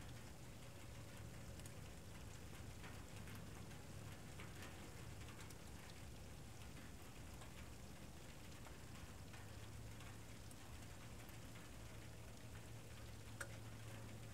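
Faint, steady background hiss and low hum from a trail camera's microphone, with scattered light ticks and one sharper click near the end.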